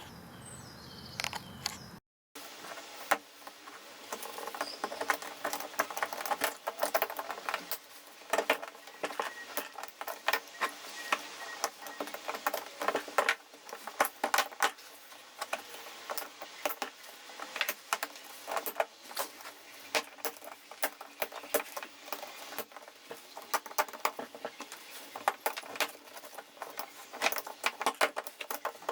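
Quiet outdoor ambience with faint bird calls, then after a brief cut about two seconds in, a long run of irregular small clicks and light clattering of hard objects.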